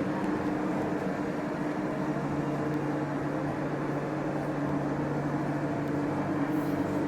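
Steady store ambience: a continuous low hum with a wash of background noise, unchanging throughout.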